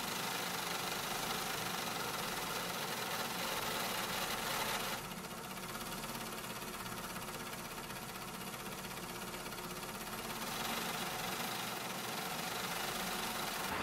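Steady whirring machine noise, dropping a little about five seconds in and rising again after about ten seconds.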